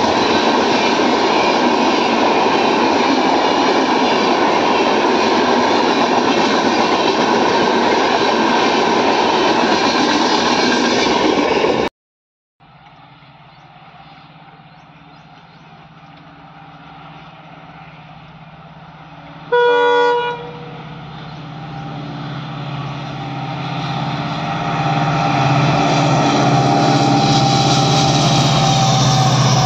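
Passenger train coaches rolling past close by, a loud steady rush of wheels on rail that cuts off suddenly about 12 seconds in. Then an Indian Railways diesel locomotive approaches with its engine growing steadily louder, and about 20 seconds in it sounds one short horn blast.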